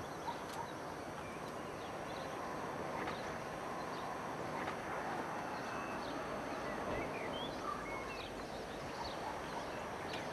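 Steady far-off rumble of a regional passenger train passing, slightly louder in the middle, with small birds chirping now and then.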